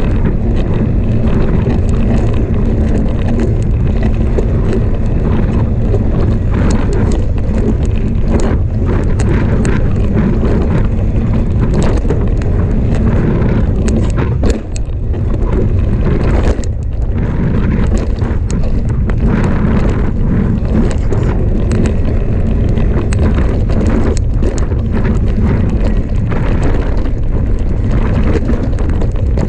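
Wind buffeting the microphone of a mountain bike descending a dirt trail at speed, over the rumble of the tyres on dirt and frequent rattles and clicks from the bike. The noise briefly drops about halfway through.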